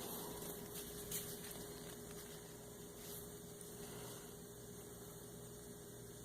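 Faint steady electrical hum, with a few light clicks and handling noises in the first seconds.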